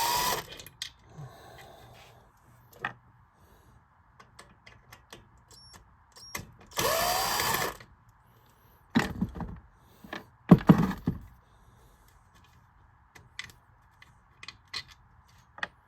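Power drill/driver whirring in three short bursts while backing screws out of the fan's rear motor housing, the longest burst about halfway through and rising in pitch as it speeds up. Light clicks and knocks of the tool and metal parts being handled come in between.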